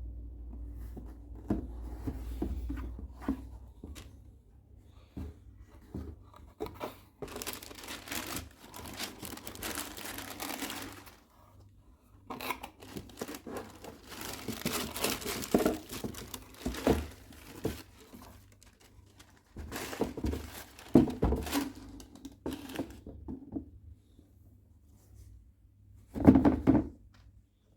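Shoebox packaging being handled: paper crinkling and tearing in several spells, with scattered knocks and a short, loud rustle near the end.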